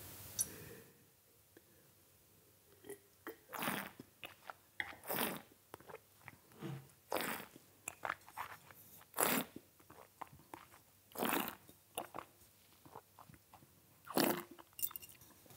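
Faint mouth sounds of red wine being tasted: a series of short slurps and swishes as the wine is drawn in with air and worked over the palate, with spitting into a spittoon.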